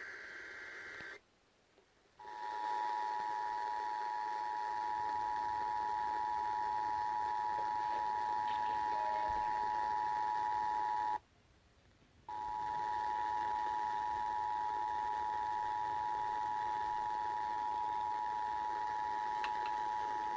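Emergency Alert System broadcast: the tail of a SAME data header, a warble of two alternating high tones, then after a short gap the EAS attention signal, a steady 853 and 960 Hz dual tone. The attention tone cuts out for about a second partway through, then resumes.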